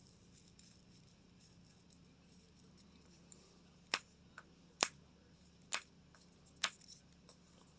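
A series of sharp clicks over faint room hum: four loud ones about a second apart in the second half, with a few fainter ticks between.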